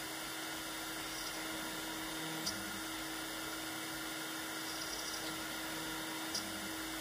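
CNC router spindle running steadily at high speed as a small end mill cuts a slot in a 6061 aluminum plate, with a steady low hum under it. Two faint ticks come about two and a half seconds in and again about four seconds later.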